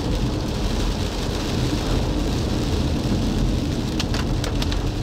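Steady noise of rain and wind with a low rumble underneath, and a few sharp ticks near the end.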